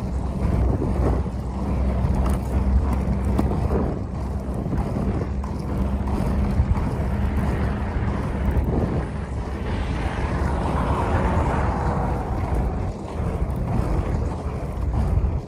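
Steady rumble of road vehicles with wind noise on the microphone. A low engine hum runs under it for about the first half and then fades.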